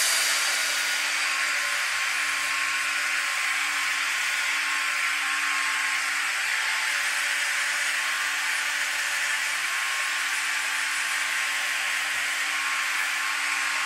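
Electric angle grinder running continuously against the steel tricycle frame: a steady grinding hiss over a constant motor tone.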